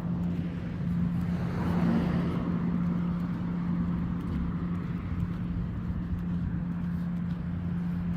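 Road traffic: a car passes about two seconds in, over a steady low hum and the wash of traffic.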